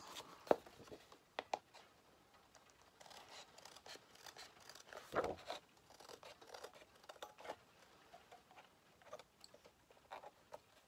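Scissors cutting card: short irregular snips with light paper rustle between them, one louder snip about five seconds in.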